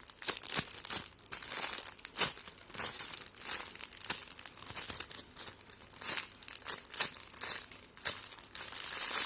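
Plastic packaging crinkling as it is handled: irregular, sharp crackles and rustles.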